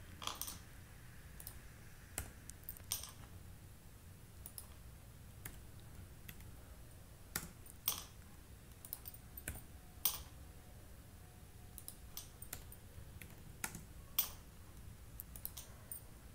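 Computer keyboard keystrokes, faint, sparse and irregular with pauses between them, as text is typed and pasted into the editor.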